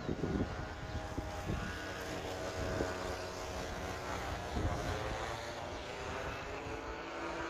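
Paramotor's small engine and propeller running steadily in flight, a continuous buzzing drone.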